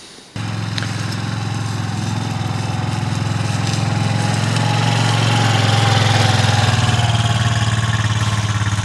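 An engine running steadily, beginning abruptly just after the start and growing slightly louder through the middle.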